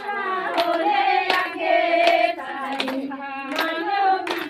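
A group of women singing a song together, with hand claps keeping a steady beat about every three-quarters of a second.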